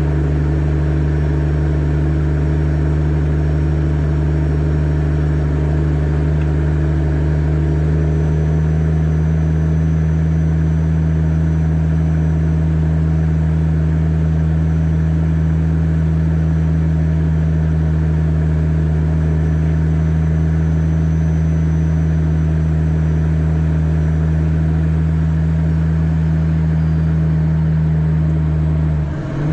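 Kenworth W900B dump truck's CAT C13 diesel engine running at a steady speed, a constant low drone that changes only right at the end.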